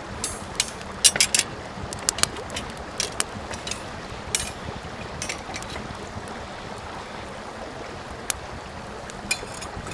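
Small wood fire of split kindling and twigs burning: a steady rush of flames with irregular sharp crackles and pops, the loudest cluster about a second in.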